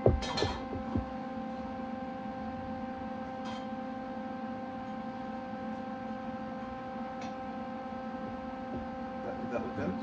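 Steady electrical hum with several evenly spaced overtones. There are a couple of sharp metal clanks in the first second as the steel tube is shifted in the vise.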